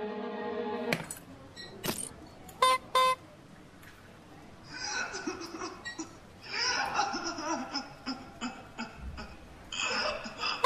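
Two short honks of a squeeze-bulb horn, then a cartoon character laughing in three long bursts.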